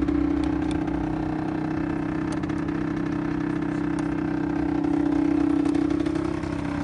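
Peugeot Speedfight 2 scooter's two-stroke engine idling steadily, swelling slightly about five seconds in.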